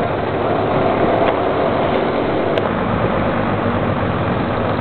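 Dump truck's diesel engine running steadily while its bed is raised to tip its load, a low, even hum.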